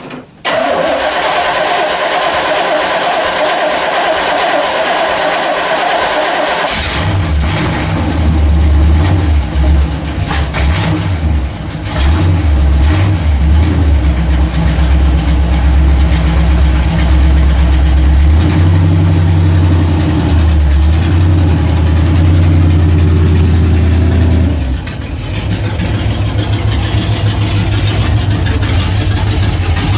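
1985 Chevy K10 pickup engine being cranked on the starter for about six seconds, then catching and running, its speed rising and falling, before settling to a steadier, lower idle near the end.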